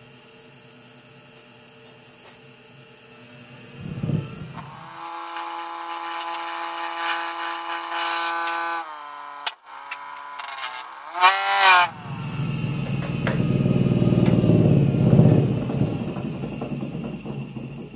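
Wood lathe with a bowl blank mounted: a faint hum, a thump about four seconds in, then the motor's steady whine, its pitch shifting up and down near the middle. In the second half comes a loud, rough rumble as the out-of-round bowl blank spins and the gouge meets it, the whole lathe vibrating.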